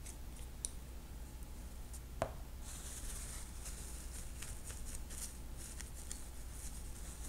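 Small handling sounds while glue is applied to a bucktail clump at a fly-tying vise: a light click, then a sharper click about two seconds in, followed by a few seconds of soft rustling and small ticks as the tier's hands and glue applicator work the bucktail fibres.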